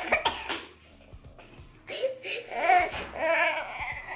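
A little girl sobbing after a splinter removal: shaky, breathy gasps, a brief lull, then wavering whimpers from about two seconds in.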